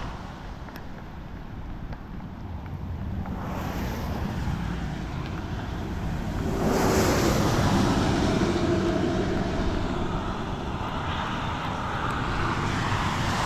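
Rain and wind on the camera microphone: a steady rushing noise that grows louder about six and a half seconds in.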